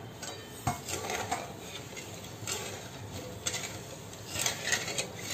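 Metal spatula scraping and stirring across the bottom of a steel pan of sugar and water, in irregular strokes with a few sharper ticks, as the sugar is melted for syrup.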